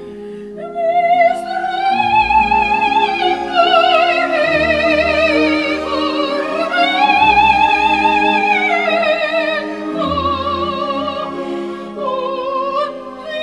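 Slow background music: a lead melody with heavy vibrato slides slowly up and down over held low chords.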